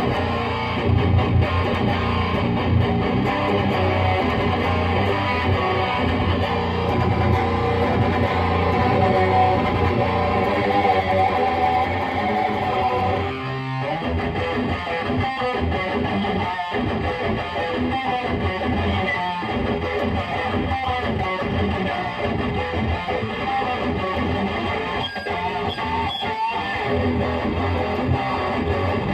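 High-gain distorted electric guitar riffing: a Gibson Les Paul through a Lone Wolf Audio Bullet Belt pedal into a Peavey 6505 amp and 2x12 cab. Held, ringing chords fill the first half; after a short break about halfway in, the playing turns choppier, with quick stops between the notes.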